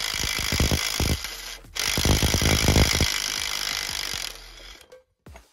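Ryobi cordless impact wrench hammering on an extremely tight axle pivot bolt in two bursts, with a short break about one and a half seconds in, then running on more lightly before it stops.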